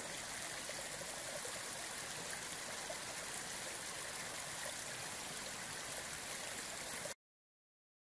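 Shallow forest brook running over a stony bed: a steady rush of water that stops abruptly about seven seconds in.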